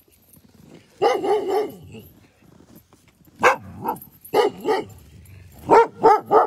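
Alaskan husky sled dogs staked on a chain line barking in several separate bursts, with a cluster of quick barks near the end.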